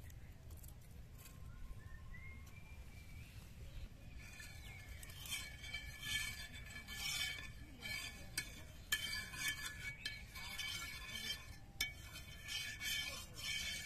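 A flat metal spatula scraping back and forth across an iron tawa, spreading oil over the griddle in repeated strokes with light metallic clinks. The scraping starts about four seconds in.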